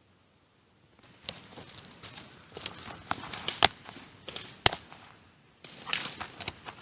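Dry leaves and twigs rustling and crackling, with several sharp snaps, in two spells broken by a short pause.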